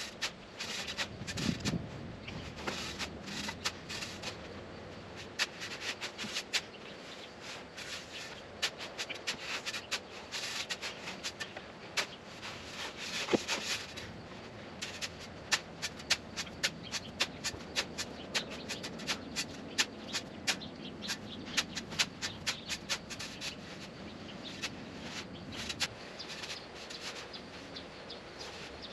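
Shovel working loose sand by hand: irregular scraping of the blade into the sand with many short sharp ticks, repeating throughout.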